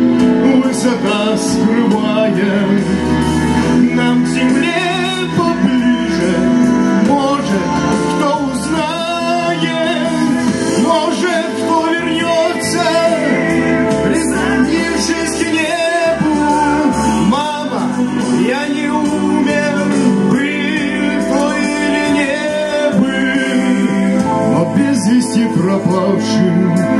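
A man singing a song into a microphone, amplified through loudspeakers, with acoustic guitar accompaniment.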